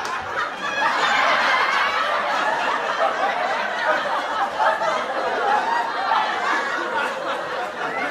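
Sitcom laugh track: a studio audience laughing and chuckling together, a dense crowd of overlapping laughs that holds steady throughout.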